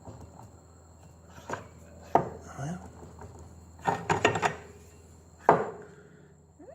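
Metal scooter transmission parts knocking and clinking as the clutch bell is fitted over the clutch: a handful of sharp knocks, the loudest about two, four and five and a half seconds in.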